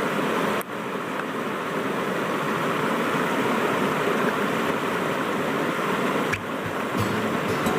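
Waterfall rushing in a steady, even roar of falling water, dipping briefly twice, with a few faint clicks near the end.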